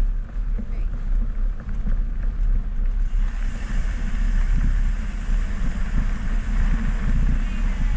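Wind buffeting the microphone of a camera carried down a mountain bike trail, a steady low rumble. About three seconds in, a brighter hiss joins it.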